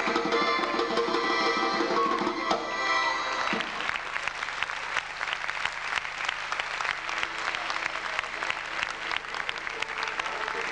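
Caucasian folk dance music stops abruptly about three and a half seconds in, and the audience breaks into applause.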